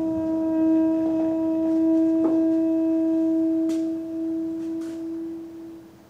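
Background music: one long low brass note held steady for several seconds, fading out near the end, with a few faint clicks.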